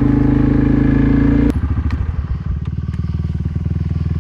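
Quad (ATV) engine running steadily under throttle, then about a second and a half in the throttle is let off and it drops abruptly to a quieter idle with an even pulsing beat.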